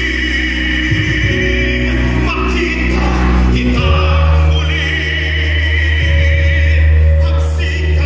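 Musical theatre number: several voices singing long held notes in chorus over a loud backing track, the harmony shifting to a new chord about four seconds in.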